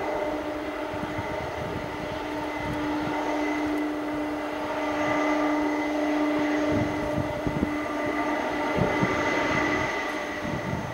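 Jet engines of a Boeing 767-300ER on the takeoff roll: a steady whine over a rushing engine noise, growing louder about halfway through.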